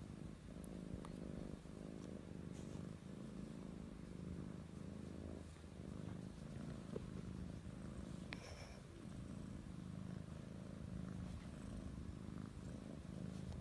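Small kitten purring steadily while being stroked and cuddled, a continuous low purr.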